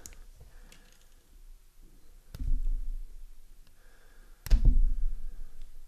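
Small wire cutters snipping thin hookup wires twice, about two seconds apart, each snip a sharp click followed by a dull knock.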